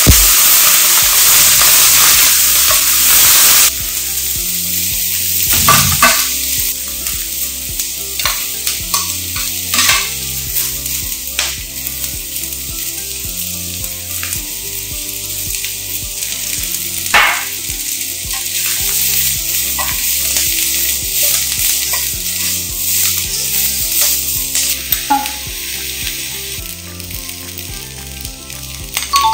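Food sizzling in a hot hammered iron wok during a stir-fry: a loud, even sizzle for the first few seconds, then a quieter sizzle. A metal spatula scrapes and clinks against the wok now and then as the chives and other ingredients are tossed.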